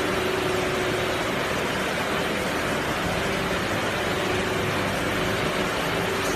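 Hard candy production line machinery running: an even, steady whirring hiss with a faint hum held underneath.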